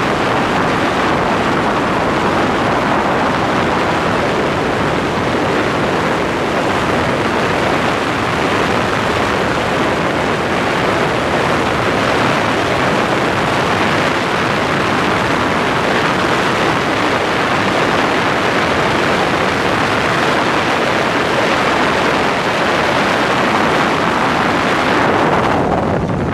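Steady rushing noise of wind buffeting the microphone and water rushing past a boat running at full speed.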